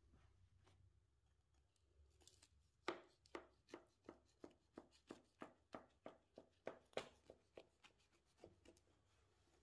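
A kitchen knife sawing down through a baked strawberry crumble cake, the crisp crumble topping giving a regular run of faint crunches about three a second. The crunches start about three seconds in and stop about a second before the end.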